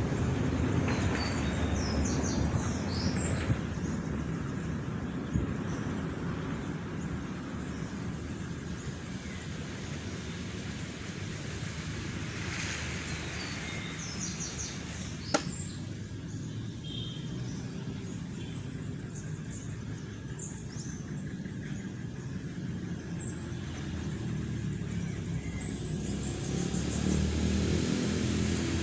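Outdoor ambience: a steady low rumble, likely distant traffic or wind, with birds chirping now and then. There is a single sharp click about halfway through.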